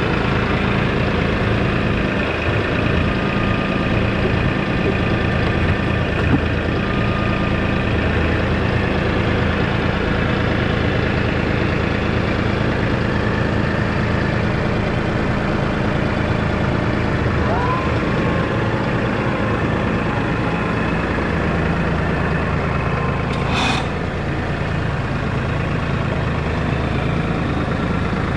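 Tractor engine running steadily under work, with a short hiss near the end.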